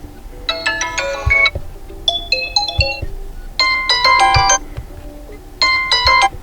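Vivo iQOO Z8 phone ringtone playing: four short, bright chiming melodic phrases with brief gaps between them over a soft sustained backing tone.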